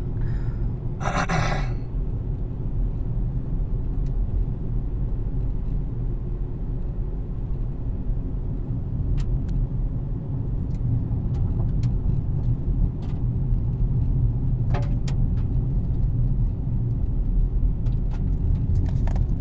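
Car running with a steady low rumble, with a brief louder noise about a second in and a few faint ticks.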